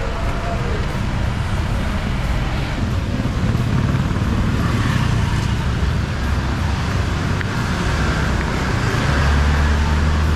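A road vehicle's engine running with road noise, steady and continuous, the engine hum growing louder near the end.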